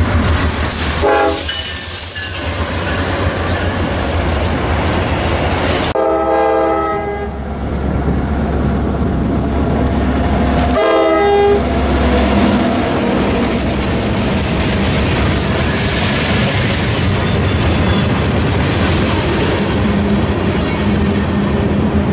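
Norfolk Southern diesel freight train passing close by: the locomotive horn sounds three times, a short blast about a second in, a longer one around six seconds and another short one near eleven seconds. Between the blasts come the steady engine rumble and the clickety-clack of the freight cars' wheels over the rail joints.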